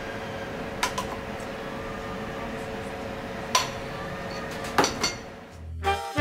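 A metal spoon clinking against a stainless steel bowl and a plate as tartar sauce is spooned out: a few sharp clinks spread across several seconds over a steady hum. Swing music starts near the end.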